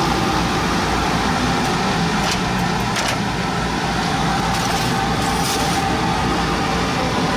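Laser cutter running steadily while cutting half-inch acrylic: a constant machine hum and whir, with a few brief hisses.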